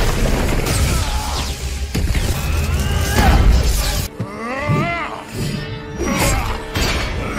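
Action-film battle sound mix: dramatic music under fight sound effects of metal clashing, crashes and crackling electricity.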